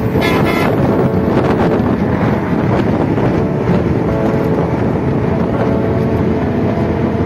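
Wind buffeting the microphone over the steady running noise of a moving road vehicle, filmed through an open side window.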